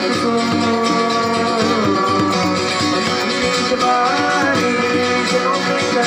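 Live acoustic band playing: violin and another bowed string instrument holding and sliding between long notes over guitars and a hand drum.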